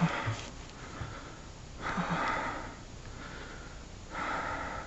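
A man breathing heavily and excitedly into the microphone: a few short voiced grunts at the start, then long, loud exhalations about two seconds in and again near the end.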